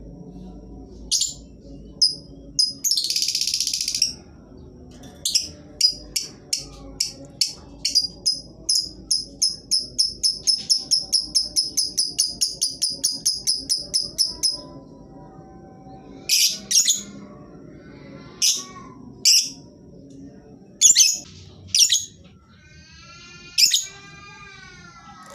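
Lovebird calling: shrill short calls, then a long rapid chattering trill (the 'ngekek') of about four notes a second lasting nearly ten seconds, followed by more single shrill calls.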